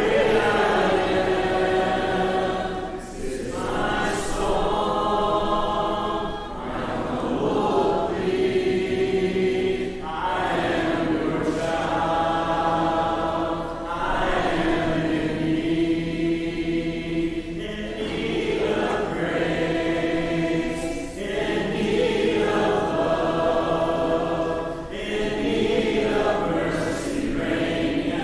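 Congregation singing a hymn a cappella, many voices in parts, with no instruments. It moves in phrases of about three to four seconds with brief breaths between.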